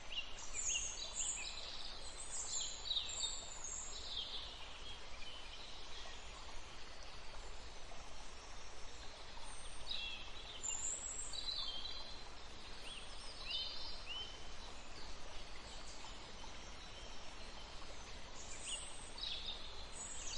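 Songbirds chirping and trilling in short high bursts over the steady rush of a stream. The calls come in clusters: in the first few seconds, again from about ten to fifteen seconds in, and near the end.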